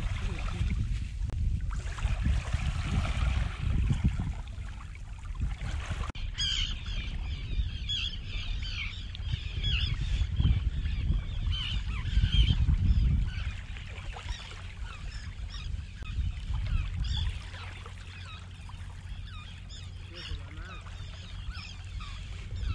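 Wind buffeting the microphone over small waves lapping on a sandy shore. From about six seconds in, a flock of shore birds calls continuously with many short, high notes.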